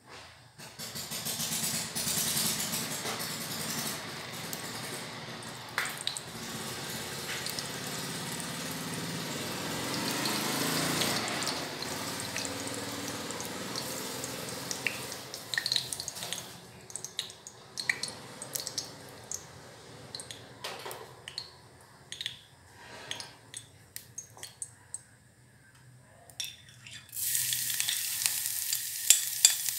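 Food frying and sizzling in hot oil in a pot, stirred with a utensil. The sizzle fades about halfway through, leaving scattered taps and clicks, then comes back loud near the end.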